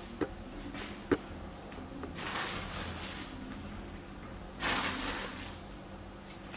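Plastic bag of breadcrumbs rustling as the crumbs are shaken out and sprinkled over the potato gateau, in two spells, about two seconds in and again about four and a half seconds in, with a couple of small clicks in the first second.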